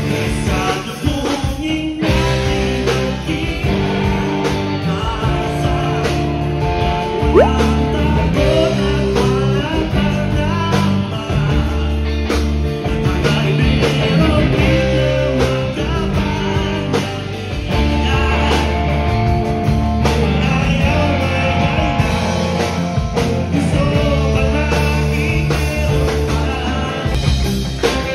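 Live OPM rock band playing: a male lead vocalist singing over electric guitar, bass guitar and drums, with a steady beat.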